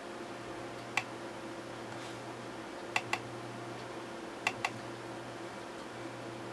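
Computer mouse button clicking: a single click about a second in, then two quick double-clicks opening folders, with a steady low hum underneath.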